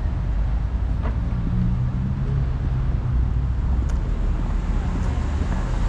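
City street traffic: vehicles running past, with a steady low engine hum from a nearby vehicle that holds through the middle of the sound.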